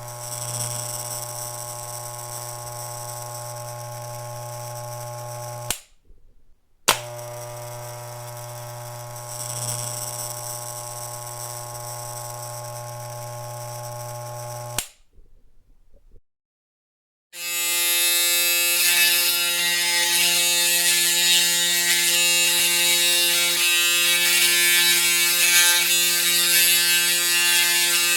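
Electric shaver motor buzzing steadily. It is switched off about 6 s in and clicks back on a second later, then stops again around 15 s. After two seconds of silence, a louder, higher-pitched shaver buzz starts and keeps running.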